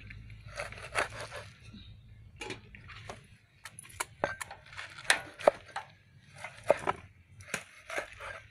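Cleaver cutting limes on a round wooden chopping board: a string of irregular sharp knocks as the blade goes through the fruit and strikes the wood.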